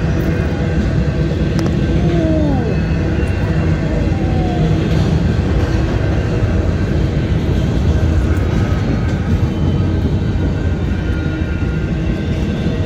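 Union Pacific intermodal freight train's flatcars rolling past over a level crossing: a loud, steady rumble of wheels on rail. There are a couple of brief falling squeals about two seconds in.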